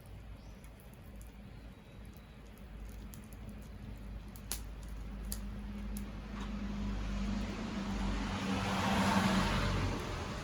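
Wood bonfire burning, with a few sharp crackles and pops in the middle. In the second half a swell of rushing noise with a low hum builds to a peak near the end and then eases.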